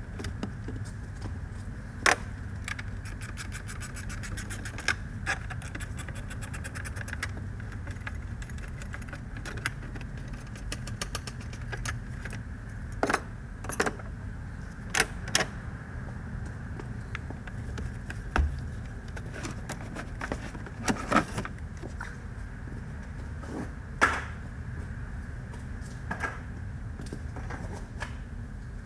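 Metal tools clicking and clinking on a car battery's terminals and hold-down as the battery is disconnected and unbolted, with a fast run of even ticks a few seconds in and scattered sharp knocks, over a steady low hum.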